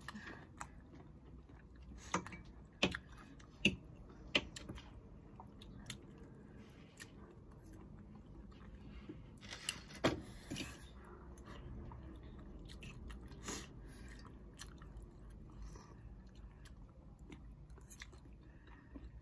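Two people eating noodles with forks: quiet chewing and slurping, with a few short sharp clicks, mostly in the first few seconds and again around the middle.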